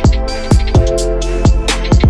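Electronic background music with a steady kick-drum beat and sustained synth chords.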